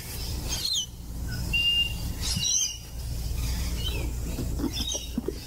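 Wild parrots (rainbow lorikeets and galahs) giving short, scattered chirps and calls, over a steady low rumble.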